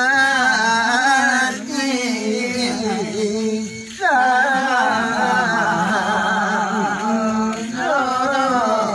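Limbu palam: voices singing the traditional sung verse in long, slow phrases over a held lower tone, with a wavering, ornamented melody. New phrases begin about four seconds in and again near the end.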